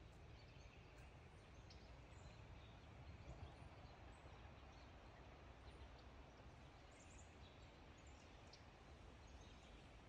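Near silence: quiet woodland ambience with faint, scattered short bird chirps over a low steady rumble.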